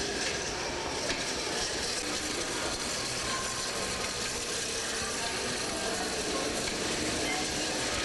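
Wire shopping cart rolling and rattling on a hard gallery floor, a steady rattling noise.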